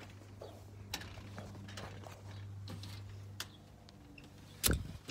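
Faint clicks and rustling of a phone being handled up close, over a low steady hum that stops about three and a half seconds in, then one sharp thump near the end.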